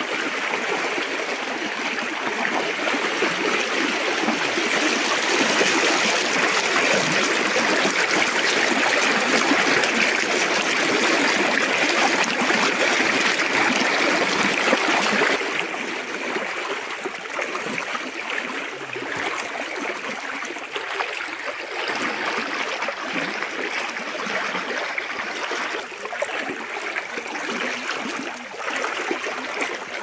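Shallow woodland stream rushing: a steady flow of water. About halfway through it drops suddenly to a quieter level.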